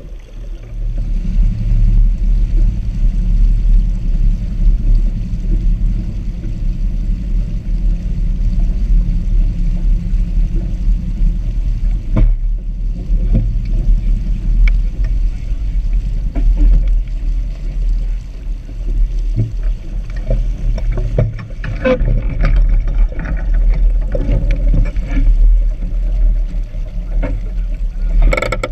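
Small sailboat under way: a steady low rumble of wind buffeting the bow-mounted action-camera microphone, with water washing along the hull. Toward the end come splashes against the hull, then one sharp knock.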